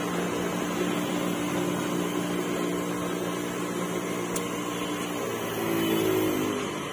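Cotton candy machine's spinning head humming steadily as the floss is wound on. Near the end its hum slides down in pitch and stops as the machine spins down.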